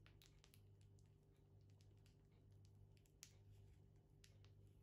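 Near silence: a low steady hum with faint, scattered soft clicks.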